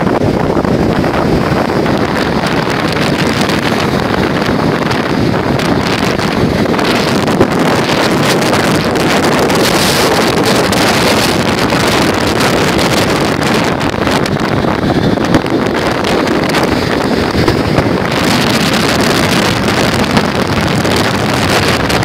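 Strong wind buffeting the microphone in a steady loud rush, over the wash of storm waves breaking on a sandy beach.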